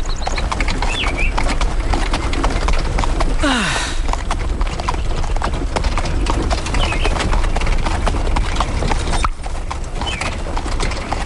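Cartoon donkey making rapid repeated popping clicks with its mouth to amuse himself, over the clip-clop of horses' hooves pulling a carriage.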